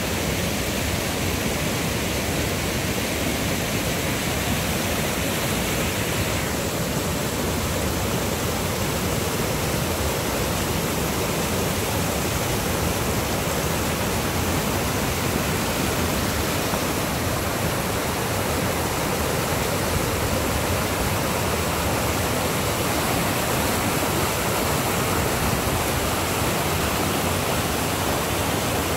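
Flood-swollen creek rushing through rapids after heavy rain: a steady, unbroken noise of fast-moving water.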